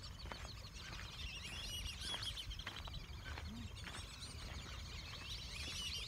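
Many birds calling at once: a dense chorus of short, overlapping high chirps and whistles, with a steady low rumble underneath.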